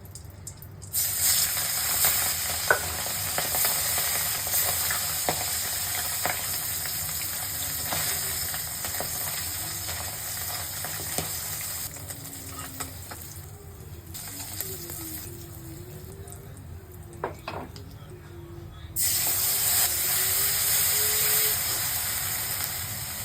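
Food sizzling as it fries in hot oil in a pan, stirred, with a few sharp clinks of a utensil against the pan. The sizzle dies down about 12 seconds in and comes back loud about 19 seconds in.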